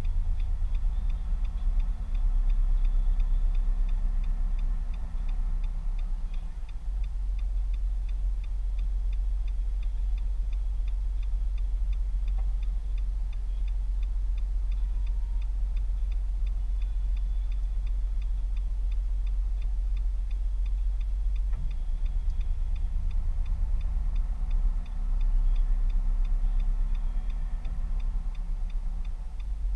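Car engine idling, heard inside the cabin, with the direction indicator ticking at a steady even rate. A low hum swells twice, once near the start and once near the end.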